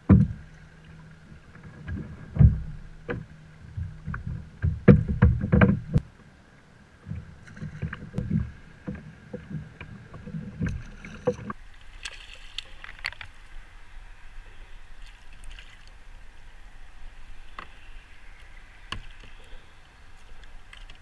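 Irregular knocks and thumps on a plastic sit-on-top fishing kayak as rod and fish are handled, with water lapping at the hull. It turns quieter about halfway through.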